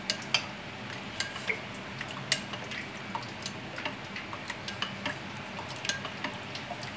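Metal spoon stirring thin yogurt in a ceramic bowl: soft wet stirring with irregular light clinks of the spoon against the bowl, a few each second.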